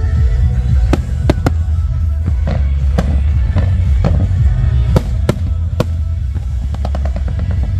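Aerial fireworks bursting in a series of sharp bangs, with a quick run of crackles near the end, over music playing throughout.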